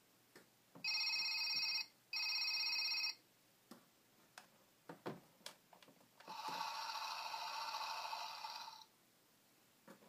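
Electronic sound chip of a children's play-a-sound book playing a telephone ring twice, each about a second long. Then come scattered clicks from its plastic buttons being pressed, and about six seconds in, a second steady electronic sound effect that lasts about two and a half seconds.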